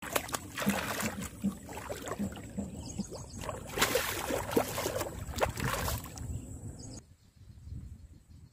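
Large catfish thrashing in shallow water at the bank, throwing up repeated loud splashes one after another. The splashing stops about seven seconds in.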